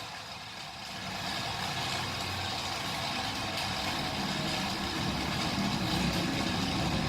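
Hot Wheels 2-Speed Power Booster's small battery-powered motor running steadily, its spinning wheels whirring and growing slowly louder.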